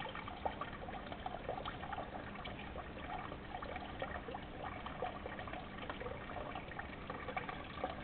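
Water trickling and splashing steadily into a small flood-and-drain grow bed as the pump fills it, just before the bell siphon starts to drain it.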